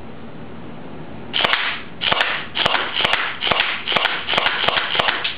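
H&K P30 electric airsoft pistol firing in semi-auto: about nine single shots at roughly two a second, starting about a second and a half in. Each is a sharp snap with a brief whir of the motor-driven gearbox cycling.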